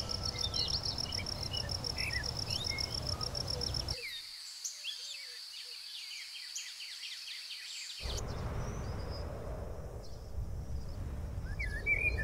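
Nature ambience: insects trilling in a steady pulsing rhythm, with scattered bird chirps over a low rumbling noise. The mix changes abruptly about four seconds in, when the rumble drops out, and again about eight seconds in, when it returns.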